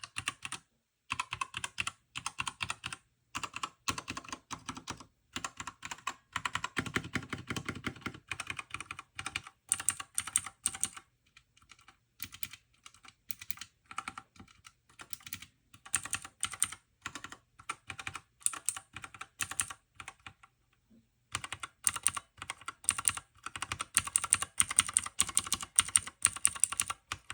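Typing on a Keychron K2 Retro aluminium hot-swap mechanical keyboard: runs of rapid keystrokes on its linear red switches and on the clicky blue switches fitted to the four arrow keys, for comparing the two. The typing pauses briefly about eleven and again about twenty-one seconds in.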